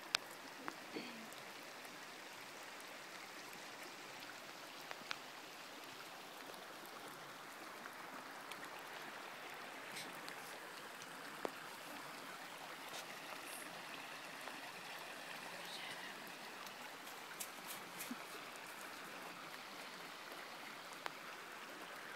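Creek water running over a shallow, stony bed, a steady even rush, with a few sharp clicks scattered through.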